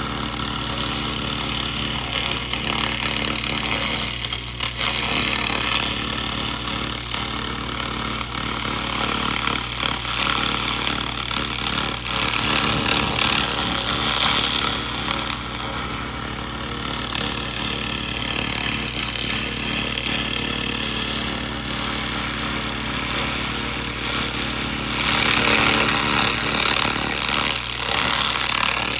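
Laser rust remover ablating rust from metal: a steady crackling hiss over a constant machine hum, growing louder and brighter for a few seconds near the end.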